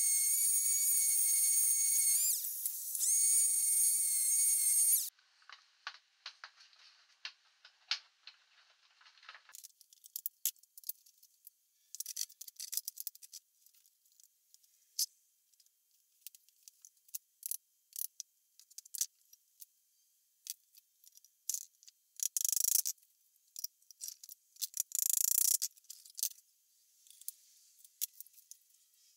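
Random orbit sander running on a beech panel with a steady high whine, cut off about five seconds in. After that come scattered light clicks and knocks of handling wood and bar clamps, with two brief rustling bursts later on.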